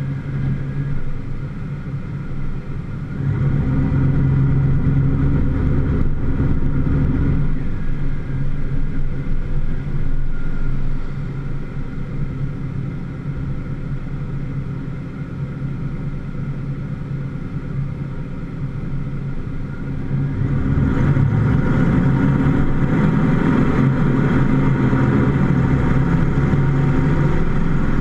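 Vehicle engine running, heard through the hood: it idles with a steady hum, grows louder for several seconds early on and eases back, then about twenty seconds in revs up and keeps pulling as the vehicle drives off, with road noise joining it.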